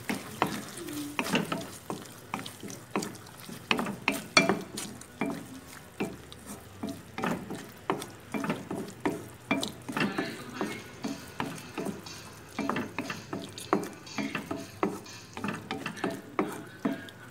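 A spatula stirring and scraping strips of abalone through thick chili-ketchup sauce in a wok, with frequent irregular knocks and scrapes against the pan while the sauce sizzles.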